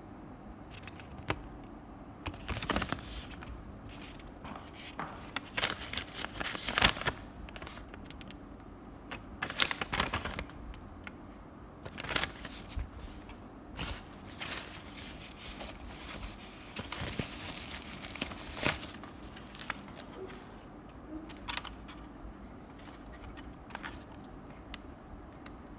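Packaging being handled and opened: crinkling and tearing in irregular bursts, busiest in the middle and thinning out near the end.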